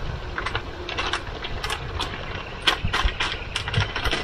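Cooking utensils clinking against cookware: an irregular run of light, sharp clicks and clinks over a low rumble.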